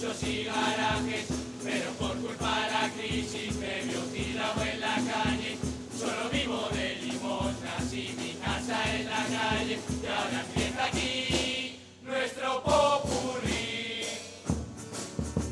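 Carnival murga chorus singing together on stage, accompanied by a steady drum beat. About twelve seconds in, the singing breaks off briefly and then starts again.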